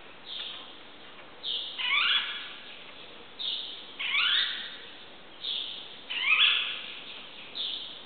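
Birds singing in an enclosed courtyard: short high calls every second or two, and three louder, longer phrases about two seconds apart.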